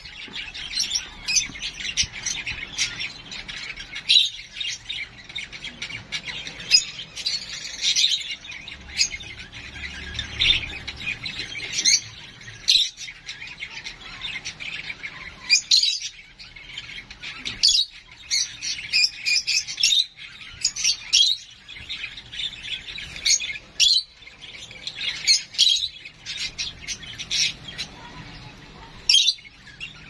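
Lovebird chick giving begging calls while being hand-fed from a syringe: rapid, repeated short squawks and chirps in quick runs, pausing only briefly.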